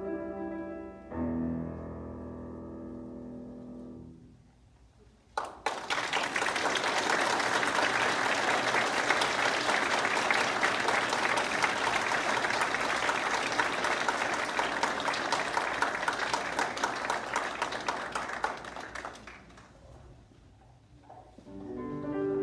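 A grand piano ends a piece with a final chord about a second in that dies away, then the audience applauds for about fourteen seconds. Near the end the applause fades and the piano starts playing again.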